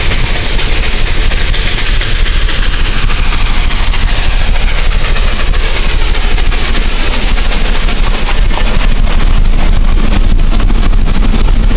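Robert Dollar #3 steam locomotive running past at close range, loud, with a rapid clatter over a steady low rumble. From about 8 seconds in, its train of freight cars rolls by on steel wheels and the sound grows a little louder.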